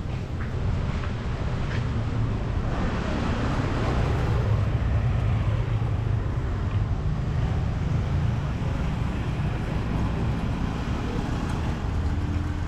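Street traffic: engines of passing vehicles humming steadily, with a louder swell as one passes about three seconds in.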